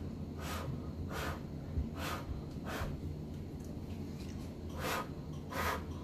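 A person blowing by mouth on wet, thick acrylic paint to push it across the panel. The breath comes in about six short airy puffs.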